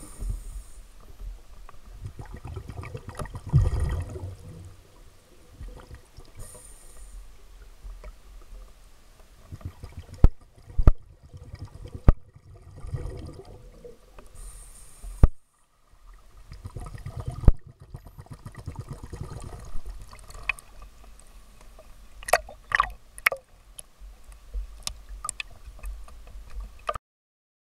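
Muffled underwater sound from a camera held by a scuba diver: low rumbling and gurgling water with surges of exhaled regulator bubbles every few seconds, broken by sharp clicks and knocks. The sound drops out abruptly several times where clips are cut, and a quick run of clicks comes near the end.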